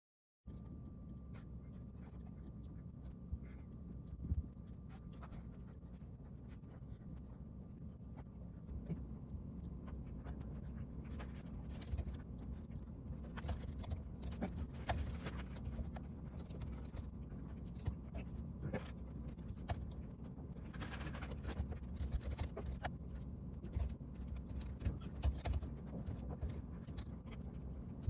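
Typing on a laptop keyboard: quick, irregular key clicks over a steady low room hum, growing busier about a third of the way in.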